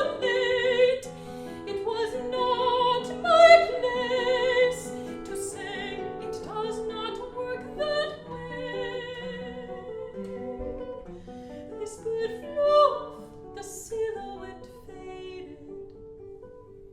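Mezzo-soprano singing an art song with a wide vibrato over classical guitar accompaniment.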